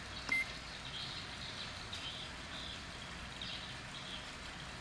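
Ricoh MP C copier touch-panel key beep: one short high beep with a click as an on-screen button is pressed, about a third of a second in. Under it a low steady hum and faint high chirping in the background.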